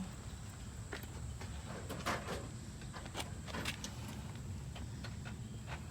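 Faint, scattered light clicks and taps of small metal parts being handled while a cotter pin is fitted through the rear axle nut of a motorcycle, over a steady low hum.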